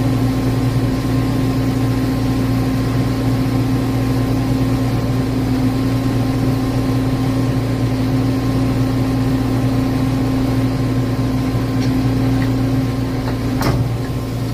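Volvo excavator's engine running steadily at a fixed pitch, with a single sharp impact near the end.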